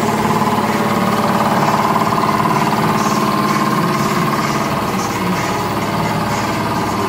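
A machine running steadily, an engine-like drone that holds one pitch throughout.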